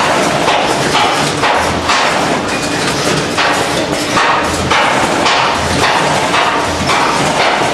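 Packaging-line machinery running loudly, a dense clatter with a low thump repeating about once a second as the machines cycle.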